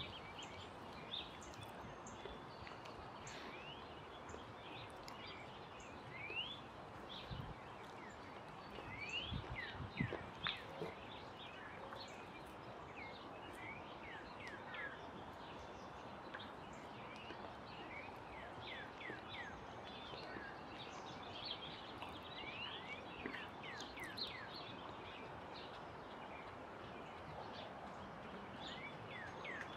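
Faint outdoor ambience of songbirds: many short, high chirps and calls scattered throughout over a steady background hiss. A couple of low, dull thumps come about a third of the way in.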